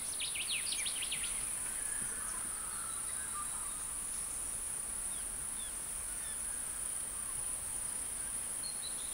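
Steady high-pitched insect drone in rural outdoor ambience, with a quick run of falling bird chirps in the first second and a half and a few faint chirps later.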